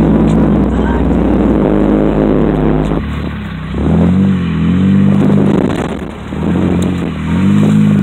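Vehicle engine heard from inside the cab, its revs rising and falling several times as it is driven along a rough, snowy dirt track, over steady road and tyre noise.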